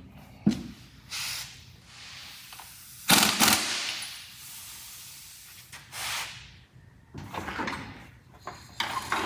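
Air impact wrench run in two short bursts, about three seconds in and again about six seconds in, driving lug nuts onto a freshly mounted wheel. Metal clatter from the floor jack follows near the end.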